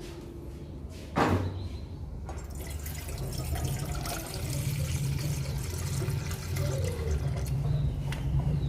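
Water running into a bottle sterilizer to fill it about 2 inches deep, a steady splashing hiss that starts about two seconds in. A single knock comes just before it, about a second in.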